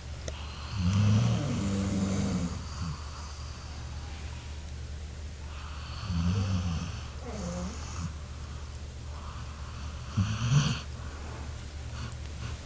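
Labrador retriever snoring in its sleep: three snores a few seconds apart, the last one short, over a steady low hum.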